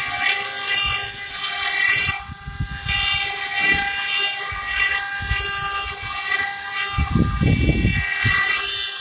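4D CNC stone-carving machine running: a steady high whine of several tones, with repeated surges of hissing noise from the tool working the stone. A low rumble comes in about seven seconds in.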